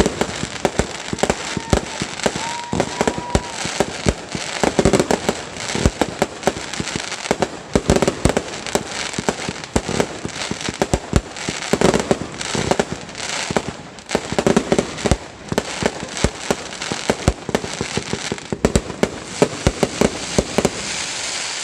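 Fireworks going off without a break: dense crackling and rapid bangs over a steady hiss, with a short steady whistling tone about two to three seconds in.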